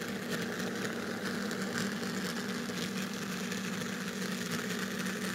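Motor and gears of an N scale SD40-2 model locomotive, a steady hum, with its wheels spinning on the rails: it is slipping under too heavy a train on the grade.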